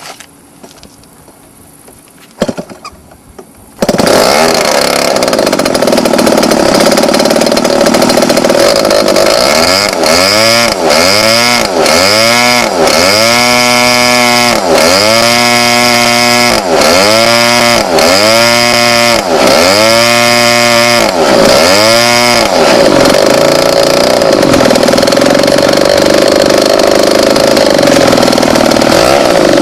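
Small model airplane engine on an RC Extra plane starting up abruptly after a few clicks, running, then revved up and down about a dozen times in quick blips roughly a second apart, and finally held at a steady high throttle.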